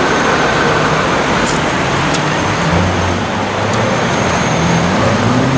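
Koenigsegg CCX's twin-supercharged V8 running at low revs in slow traffic, its low engine note rising briefly about three seconds in and again near the end, over the noise of the surrounding traffic.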